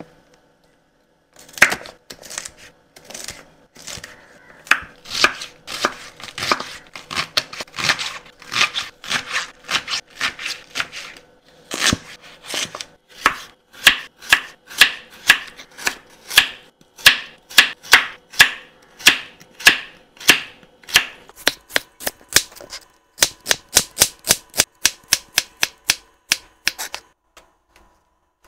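Knife chopping vegetables and onions, in steady strokes about two a second. There is a short pause about halfway, and the strokes come faster near the end.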